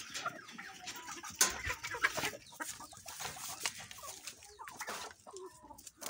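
Chickens clucking as they feed, among many sharp pecking taps, with a louder knock about a second and a half in.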